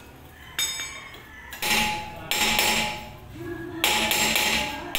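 Hammer blows on a Suzuki Ertiga's rear brake drum, about five strikes with a metallic ring, to knock loose a drum that has stuck to the hub after about five years in place.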